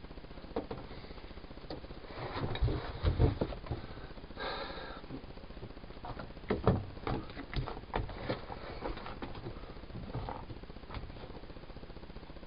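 Utility knife cutting interlocking foam floor mats, with scattered knocks, thumps and rustles as the mats are handled and pressed into place. A short squeak comes about four and a half seconds in.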